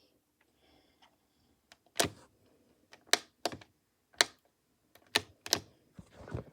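A series of sharp clicks and knocks, about seven, irregularly spaced, like buttons being pressed or small hard objects being handled.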